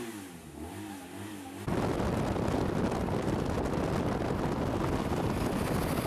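Loud, steady rushing of wind and road noise in a moving car, starting abruptly about two seconds in. Before it, a pitched sound rises and falls several times.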